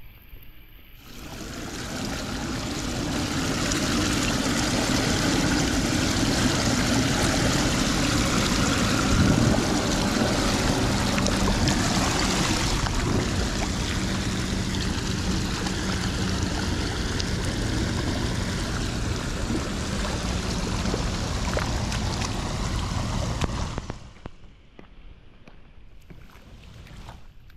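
Floodwater rushing steadily down through a steel storm-drain grate that has just been cleared of plastic debris. The sound starts about a second in and falls away sharply near the end.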